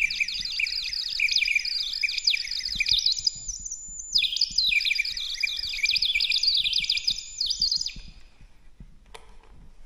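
Rapid high-pitched chirping in two runs of a few seconds each, starting and stopping abruptly, with a short break about three and a half seconds in; near the end there is a single quick rising sweep.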